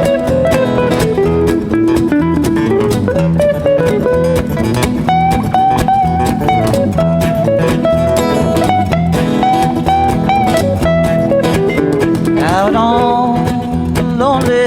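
Acoustic guitars playing a country-bluegrass instrumental intro, one guitar picking the melody over strummed chords, with a cajon keeping a steady beat.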